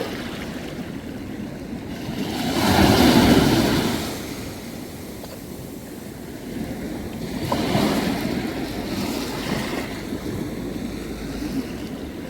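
Ocean waves washing in, rising and falling in two swells, the louder about three seconds in and a smaller one about eight seconds in.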